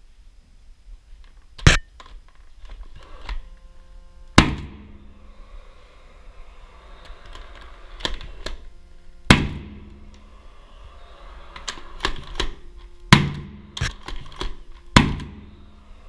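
Nail gun firing fasteners through an aluminium ceiling profile into the wall: five sharp shots a few seconds apart, each followed by the metal profile ringing briefly, with quieter clicks and knocks from handling the tool and profile in between.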